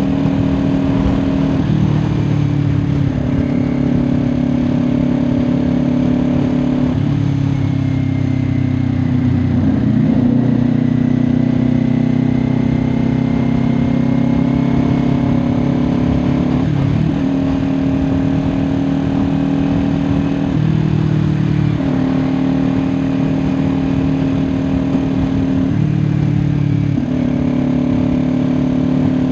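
Kawasaki Ninja 400 parallel-twin engine running at highway cruise. It holds a steady note that steps up and down slightly in pitch every few seconds.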